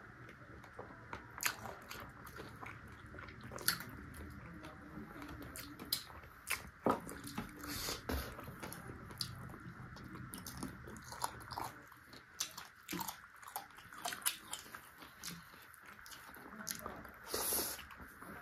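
Someone biting and chewing chicken feet close to the microphone, with many irregular sharp crunches and clicks.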